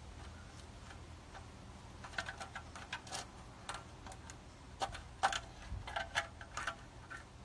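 A run of light, irregular clicks and taps of small hard objects, starting about two seconds in, as a puppy noses and mouths through a plastic basket.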